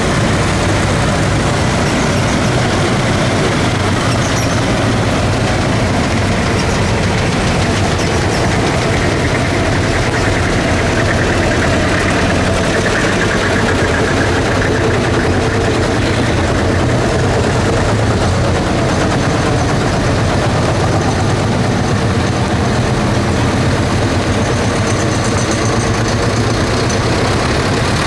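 Vintage farm tractor engine running steadily.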